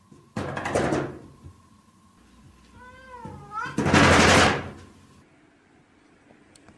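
A domestic cat meows once, briefly, between two loud noisy thumps, the second the louder.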